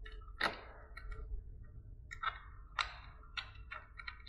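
Small, sharp metal clicks at irregular intervals: a nut, washer and fender stay being fitted by hand onto the bolt through the fork.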